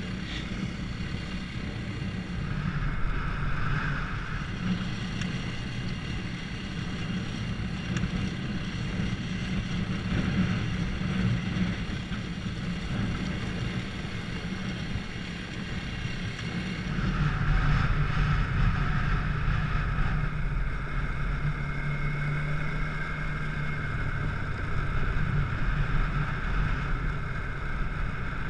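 Steady engine drone mixed with wind rushing over the microphone, as a dirt bike with a thrown chain is towed on a rope behind a quad along a gravel track. The engine note gets louder and steadier a little past halfway.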